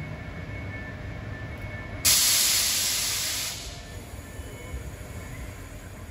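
Transperth C-series electric train standing at the platform with a low steady rumble. About two seconds in, a sharp hiss of compressed air venting from the train's pneumatic system starts suddenly and fades away over about a second and a half.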